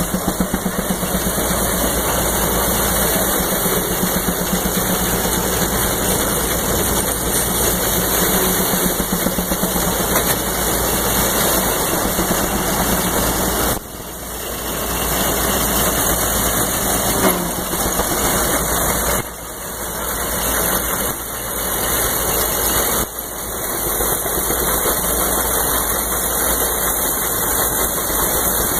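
Steam-powered threshing machine running steadily as bundles of oats are pitched into its feeder, a continuous mechanical din that dips briefly a few times.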